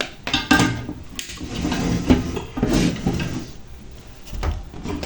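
Clattering and knocking of hard objects being handled: several sharp clicks and knocks with rattling, scraping stretches between them.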